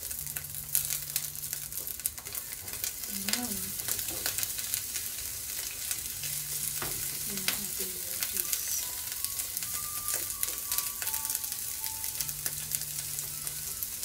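Cabbage and other vegetables sizzling as they are stir-fried in a frying pan, with tongs repeatedly clicking and scraping against the pan as they toss them.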